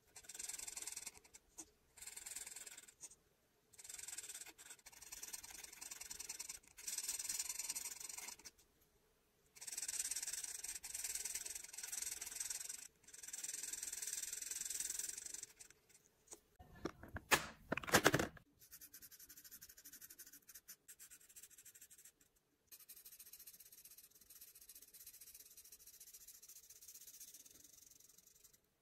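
Felt-tip alcohol marker nibs rubbing and scratching across paper while colouring in, in strokes of a second or two with short pauses between. About two-thirds of the way through there is a brief louder handling noise, then quieter, steadier scratching as a dark marker fills in a larger area.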